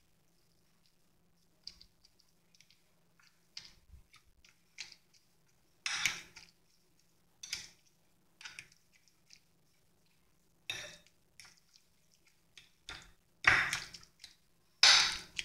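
Fork mashing cooked pumpkin on a glass plate: irregular taps and scrapes of the fork against the glass with soft squishing, sparse at first and louder near the end.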